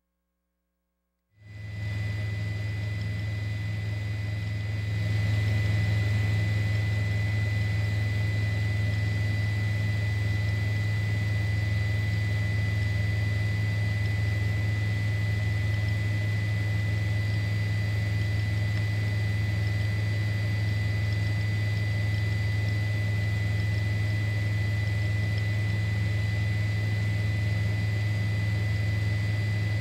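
Steady drone of a helicopter with a thin high whine running over it. It starts after a moment of silence and gets a little louder about five seconds in.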